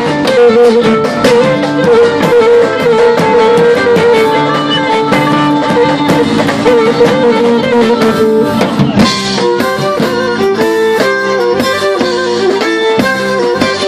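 Live Greek folk music: a violin plays a sustained melody with vibrato over a drum kit and a strummed laouto. About nine seconds in, the lead changes to quick, short repeated notes.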